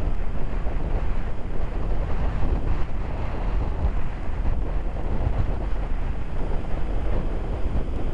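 Strong wind buffeting the camera microphone, a loud, uneven low rumble.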